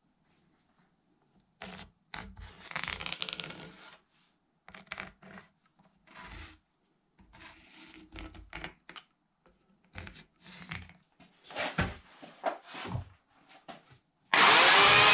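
Short bursts of rubbing and scratching on the end grain of a dry chestnut log as a lathe faceplate is shifted about and marked around with a pencil. Near the end an electric chainsaw cuts in suddenly and runs loud and steady into the log.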